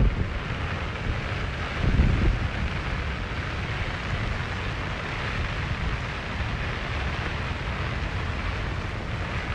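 Wind buffeting the phone's microphone, rumbling in gusts with a stronger gust about two seconds in, over a steady rushing hiss.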